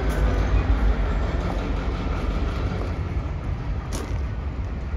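Diesel locomotive engine running as the locomotive rolls slowly away along the track, its low rumble fading.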